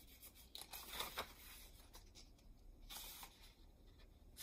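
Pages of a paperback children's book being turned, with faint paper rustles in a few short spurts.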